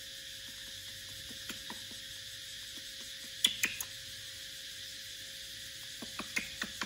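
A few light clicks and taps of a plastic feeding bottle knocking against the metal bars of a wire cage: a sharp pair a little past the middle and a quick run of taps near the end, over a steady hiss and a faint hum.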